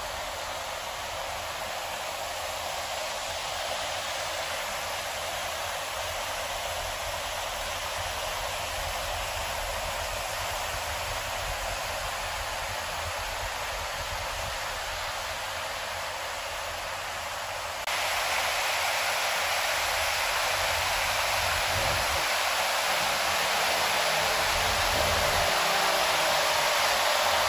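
River rapids rushing over rocks, a steady, even roar of white water that jumps louder about two-thirds of the way through.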